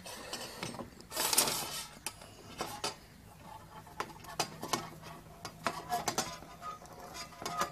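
Steel screwdriver tip grinding and clicking in a screw head as the screw is tightened down onto a hacksaw blade in a plastic box, with small metallic clicks and scrapes as the blade shifts. A stretch of scraping about a second in, then scattered single clicks.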